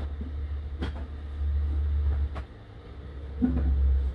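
A few light clicks of a pottery piece being picked up and handled, over a steady low rumble that swells and fades, with a brief murmur of a voice near the end.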